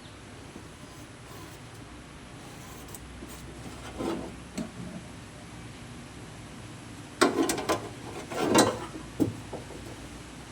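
A few scrapes and knocks of a sheet-steel repair panel being handled and rubbed against the car's boot floor as it is offered up. The loudest group of scrapes comes about two-thirds of the way in, followed by a single short knock.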